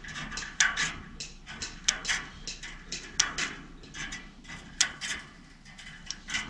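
Hand wire cutters snipping and working steel woven-wire field fence: an irregular run of a dozen or so sharp metallic clicks and snaps.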